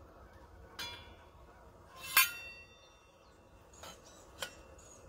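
Metal kettle and French press clinking as they are handled at a camp stove during coffee-making. There are a few light clicks, and one loud ringing clink about two seconds in.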